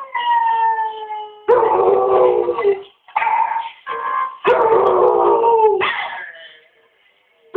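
Belgian Tervuren dog howling: a string of long howls of about a second each, several sliding down in pitch as they end. Another dog's howls and piano music from a video play along with it. The last howl, near the end, is fainter.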